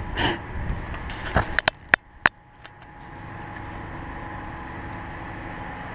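Wind noise on the microphone, with a quick run of sharp clicks and taps about one and a half to two and a half seconds in. After that comes a quieter, steady hiss.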